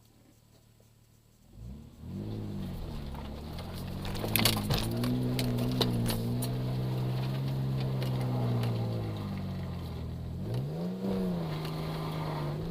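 1996 Nissan Pathfinder's engine coming up about two seconds in and pulling at a steady pitch. It eases off and picks up again near the end. Sharp knocks and clatter come around the middle as the truck works over rough off-road ground.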